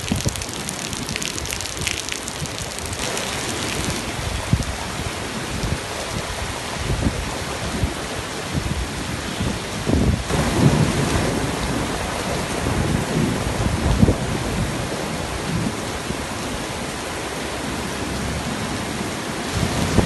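Heavy rain pouring down in a windstorm: a steady hiss of rain on wet pavement, with gusting low rumbles that swell about halfway through and again a few seconds later.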